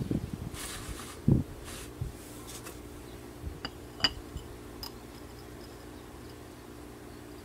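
Glass against glass: a drinking glass handled over a glass jar while water is trickled in, with a few dull bumps early on, the loudest about a second in, then several light glass clinks, the sharpest about four seconds in.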